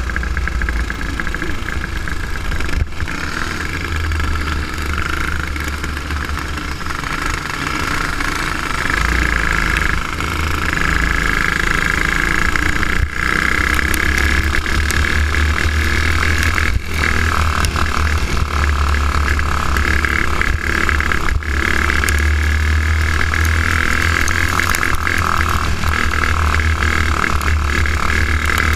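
Go-kart's single-cylinder engine running hard under racing load, heard from onboard with wind on the microphone. A few times it drops out for an instant, which the driver puts down to the spark plug cover having come off, making the engine stutter on bumps.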